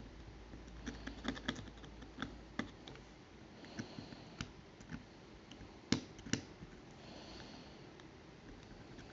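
Light ticks and short scratches of a hand tool scraping the green solder mask off a cracked printed circuit board, with two sharper clicks about six seconds in.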